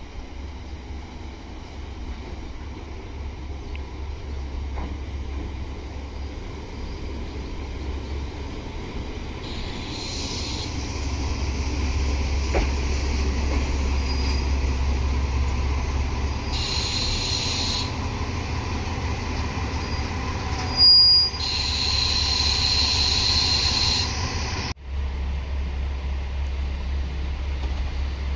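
Red diesel railcar train running into the platform and standing with its engine running, a steady low rumble that grows louder as it comes close, with several short hisses from its brakes. Near the end the sound cuts to a quieter rumble of another diesel train approaching.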